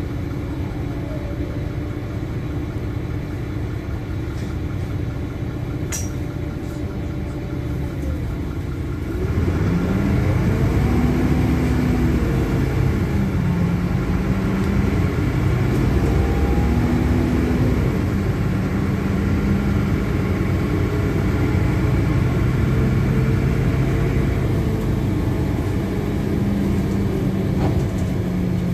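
Interior sound of a LiAZ-5292.21 city bus's diesel engine idling steadily at a stop. About nine seconds in it gets louder as the bus pulls away, the engine note rising and dropping back several times as it shifts up, then running on at a steadier pitch.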